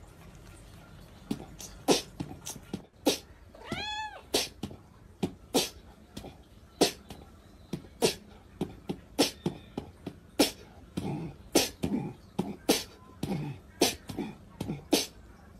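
A cat meows once, a short call that rises and falls in pitch, about four seconds in. Around it comes a steady run of sharp taps, roughly one or two a second.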